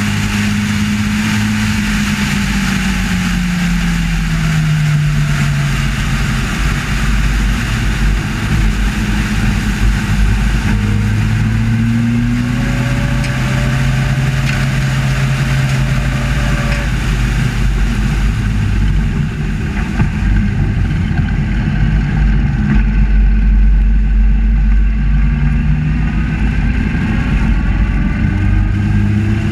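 Onboard sound of a 750 Motor Club Sports Special racing car's engine, heard from the open cockpit with a steady rush of wind and road noise. The engine note falls for a few seconds early on, climbs again around the middle, then holds at an even pace.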